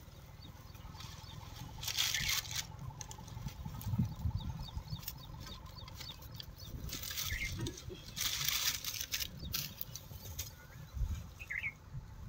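Rustling and crinkling of sacking and cord as the wrapped engine of a diesel pump set is handled, coming in bursts about two seconds in and again later, over a low rumble. A short chirp sounds near the end.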